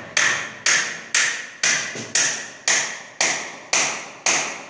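Hammer blows at the top of a window air conditioner's metal casing where it sits in its wooden frame. There are nine blows, evenly about two a second, and each rings out briefly.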